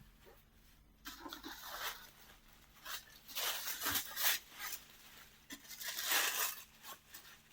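Red wrapping paper rustling and crinkling in bursts as it is handled and pulled back to open a box.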